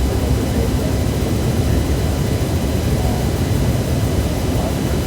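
Steady low rumble with a faint, even hiss above it and no distinct events.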